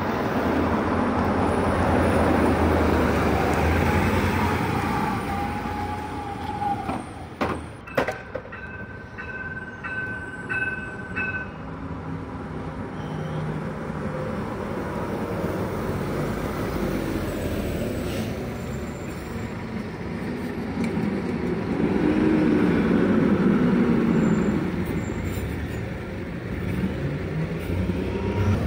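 Natural-gas city buses running: articulated Solaris Urbino 18 and Scania Citywide LFA buses idling and pulling in and away, with a GX337 passing close near the end. A few sharp clicks come about seven to eight seconds in, then a run of short beeps about two seconds later.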